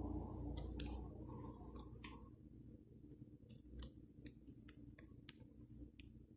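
Scissors snipping: a quick, irregular series of sharp snips, with a low hum fading out over the first second or two.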